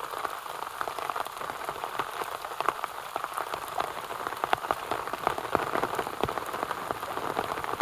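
Steady rain falling on a tent, with many individual drops ticking irregularly on the fabric.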